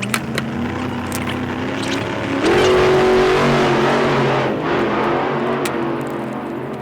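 Handheld gas torch flame hissing steadily while heating a wire joint to solder it. The hiss swells for about two seconds in the middle, then eases, with a couple of light clicks near the start.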